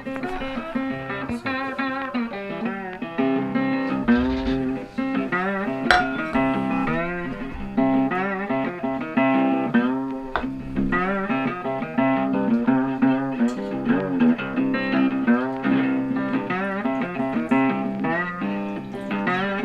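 Background blues music led by a guitar with bending notes.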